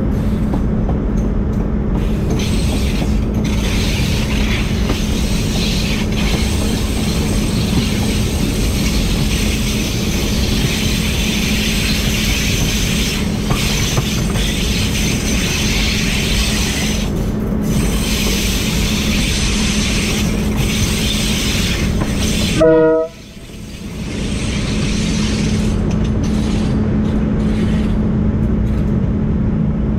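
Diesel locomotives hauling an empty coal train, running with a steady engine drone and a constant hum over rumbling noise. About 23 s in there is a short run of stepped tones, then the sound drops out suddenly and fades back in.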